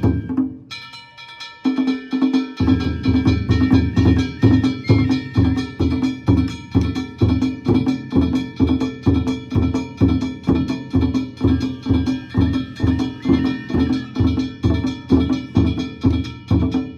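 Danjiri float narimono: a big taiko drum and ringing kane gongs beaten in a steady, driving rhythm of about two to three strokes a second. It drops away briefly just after the start, the gongs come back in first, and the drum rejoins about two and a half seconds in.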